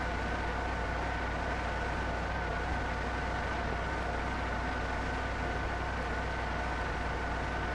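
Steady hiss and low hum of an old 16mm optical film soundtrack, with a faint steady high whine and no distinct event.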